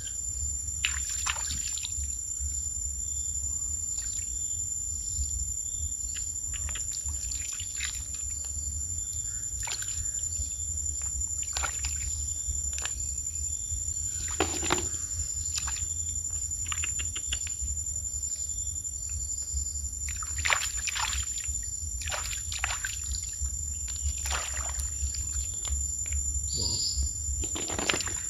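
Shallow running water splashing and trickling as hands work through it, with many short scattered splashes and knocks over a steady low rumble and a constant high-pitched whine.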